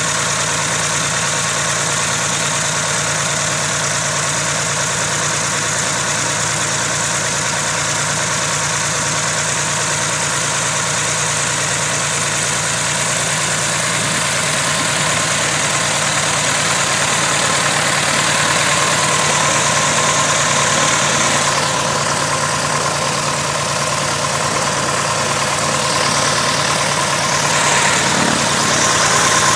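Continental O-300 six-cylinder air-cooled aircraft engine running steadily at low power on its first run after a top overhaul, getting a little louder in the last third.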